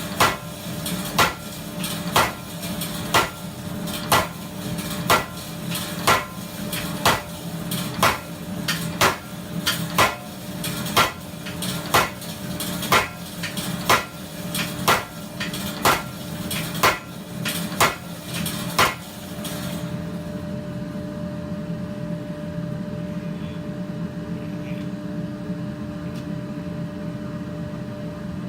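Custom-built blacksmith's power hammer striking a 30 mm x 10 mm steel bar about once a second, drawing down a round end. The blows stop about two-thirds of the way in, leaving a steady hum.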